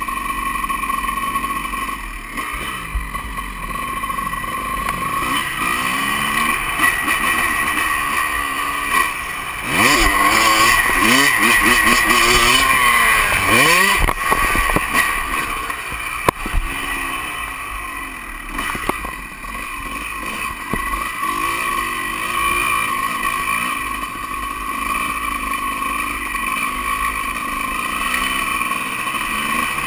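Honda CR250 two-stroke dirt bike engine revving up and down while being ridden, its pitch rising and falling with the throttle. The hardest, loudest revving comes about ten to fourteen seconds in, and there is one sharp knock about sixteen seconds in.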